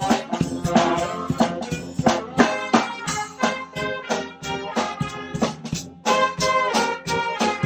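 Guggenmusik carnival band playing loudly: blaring brass over a steady beat of drum hits.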